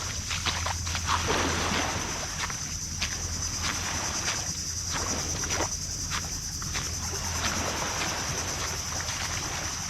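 Footsteps crunching over rough, stony ground, irregular short crunches about one or two a second, over a steady high-pitched drone of jungle insects.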